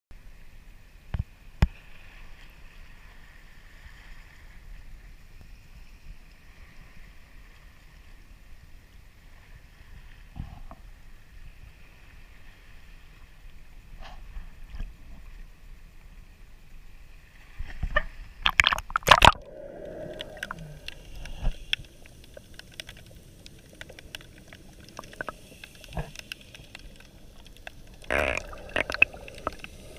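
Water slopping and splashing against a snorkeler's camera held at the water's surface, with a few sharp knocks. There is a burst of loud splashes a little past halfway, then gurgling and more splashes near the end as the camera goes under.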